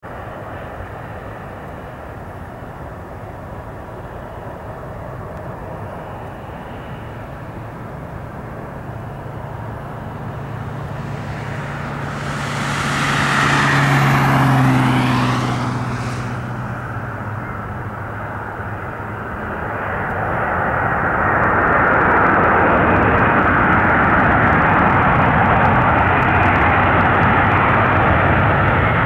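Airbus A320 jet airliner landing: its engine noise grows as it approaches and is loudest about 14 seconds in as it passes, with a whine falling in pitch. About 20 seconds in, a second, longer swell of engine noise comes as reverse thrust is applied on the rollout.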